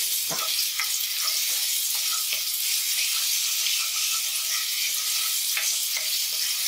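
Chopped onions sizzling steadily in hot oil in a frying pan, stirred with a wooden spatula that scrapes and taps against the pan now and then.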